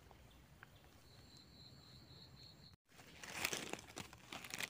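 Dry leaf litter rustling and crackling as a gloved hand works a mushroom out of the forest floor. Before this comes a near-silent stretch with a faint high pulsing chirp, which cuts off abruptly.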